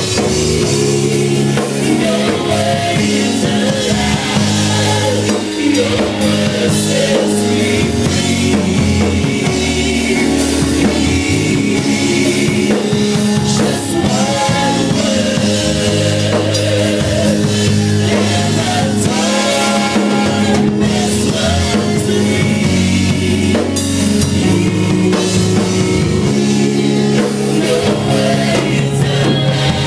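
Live church worship band: voices singing together over electric keyboard and a drum kit.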